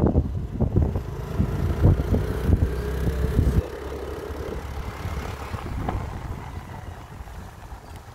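Wind buffeting the microphone over the running of a small vehicle engine while riding along a road. The noise drops suddenly about three and a half seconds in and stays quieter.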